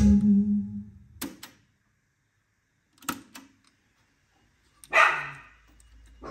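Music fades out during the first second. Then come two sharp plastic clicks, a second or two apart, from the Kenwood KX-59CW cassette deck's transport and eject mechanism. Near the end there is a short scraping rattle as the cassette is pulled out of the opened door.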